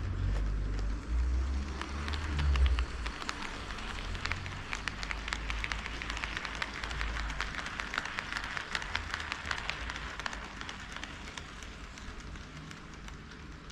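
HO scale model train running on KATO Unitrack: a low rumble for the first few seconds, then a fast rattle of wheel clicks over the rail joints that grows and then fades toward the end.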